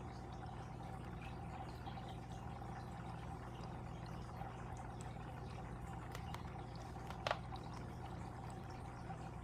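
Water trickling and splashing in a fish tank over a steady low hum, with one sharper drip about seven seconds in.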